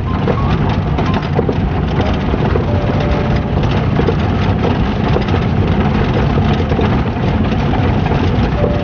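An engine running steadily, with a dense low rumble that holds an even level throughout.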